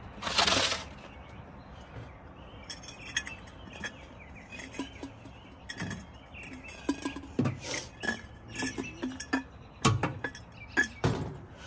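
Laundry being handled at the open drum of a small portable washer-dryer: a brief loud rustle about half a second in, then scattered light clicks and clinks, more frequent in the second half.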